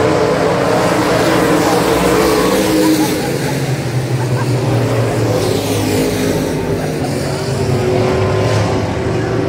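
Super stock dirt-track race cars' engines running hard around the oval, the engine notes rising and falling as the cars pass through the turns.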